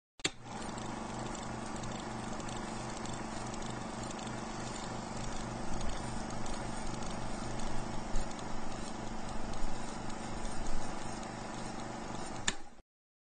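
Old film projector running: a steady mechanical whir with a low hum and a fast, even clatter. It starts with a click just after the beginning and cuts off with another click near the end.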